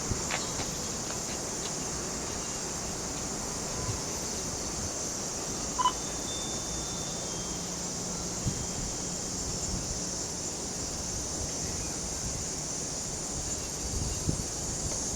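Outdoor ambience: steady high insect chirring over a low wind rumble, with a short beep about six seconds in.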